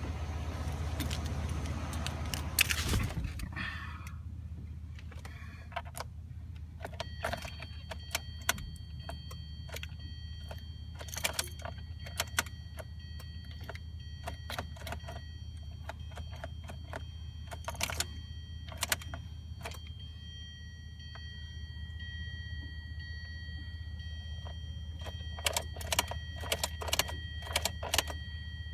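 Keys jangling and clicking at the ignition of a Hyundai Sonata that won't start, with many sharp clicks scattered through. A steady high electronic warning tone comes in about seven seconds in and keeps sounding, over a low steady hum.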